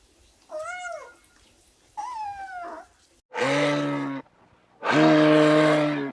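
A kitten meows twice, each call rising and falling in pitch. About three seconds in, a larger farm animal gives two loud, steady, low-pitched calls like moos, each about a second long.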